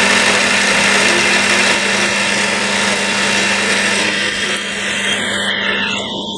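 Small benchtop metal lathe running, a steady motor hum under a dense whirring noise as it turns a thin aluminium workpiece.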